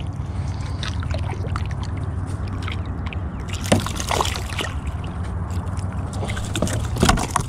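A hooked flathead thrashing and splashing at the water's surface beside a kayak, with a cluster of louder splashes about four seconds in as it is lifted clear of the water. A steady low rumble runs underneath.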